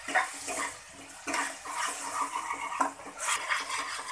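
A metal spatula stirring a thick, wet masala of onion, tomato and freshly added curd in a metal kadhai, with repeated scrapes and knocks against the pan and a wet squelch.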